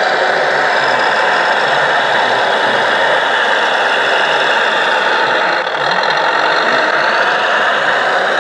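Radio-controlled Volvo L250G wheel loader's engine sound module playing a steady diesel-engine sound, with a brief dip about six seconds in.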